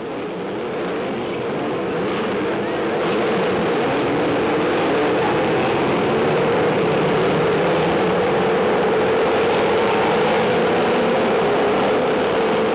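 A pack of vintage racing car engines running together as the field pulls away from a standing start. The sound builds over the first few seconds, then holds steady.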